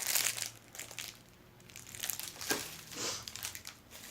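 Packaging crinkling as it is handled, in a few short rustling bursts: one at the start, then two more about two and a half and three seconds in.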